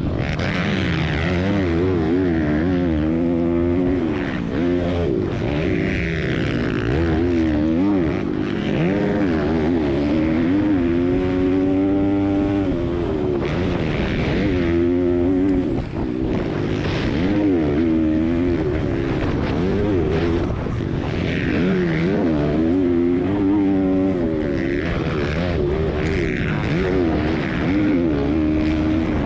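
Four-stroke pit bike engines racing, revving up and falling back again and again as the riders work the throttle and shift through the gears. At times several bikes run together at different pitches.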